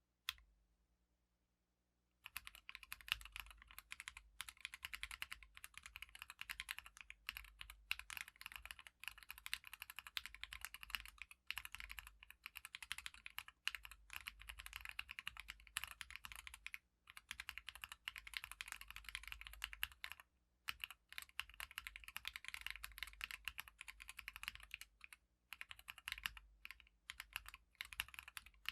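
Typing on a Casasagi split ortholinear mechanical keyboard in a 3D-printed O-ring-mount case, with Everglide orange switches and SA-profile keycaps. A single keystroke, then about two seconds in, fast continuous typing broken by a few brief pauses.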